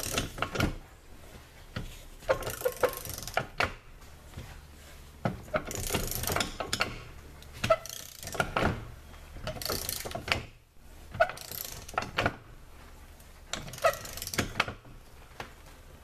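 Ratcheting torque wrench turning the forcing screw of a manual AC hose crimper down to crimp a fitting onto the hose, with a burst of ratchet clicks on each stroke, repeated every two to four seconds.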